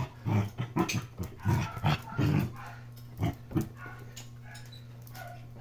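Puppies and an adult dog play-fighting: a quick run of short growls and yips for about two and a half seconds, then two more brief ones and a lull.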